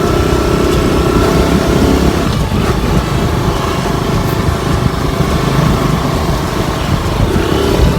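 Motorcycle engine running on the move, heard from the pillion seat. A steady engine hum for about the first two seconds gives way to a rougher, noisier rumble.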